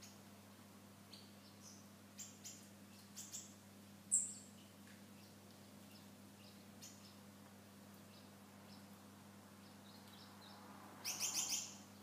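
Small aviary birds, canaries and finches, giving short scattered chirps, with one louder chirp about four seconds in and a quick run of repeated notes near the end. A faint steady low hum runs underneath.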